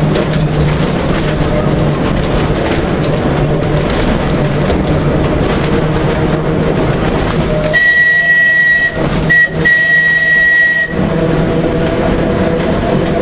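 Manx Electric Railway tram car running along the track with a steady low hum. About eight seconds in, a loud, high, steady squeal starts and lasts about three seconds, broken twice briefly.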